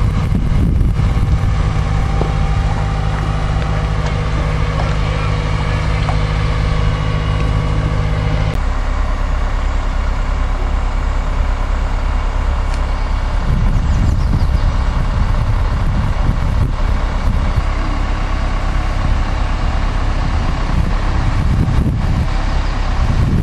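Heavy crane engine running steadily while it holds and lowers the boat in its slings, a low drone with a steady hum for the first third. After that it turns into a rougher low rumble, with wind buffeting the microphone.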